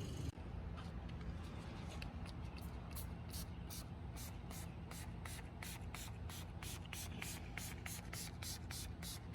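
Headlight restoration surface activator being sprayed from a spray bottle onto a yellowed plastic headlight. It comes as a quick run of short squirts, about four a second, starting about two seconds in and carrying on to the end.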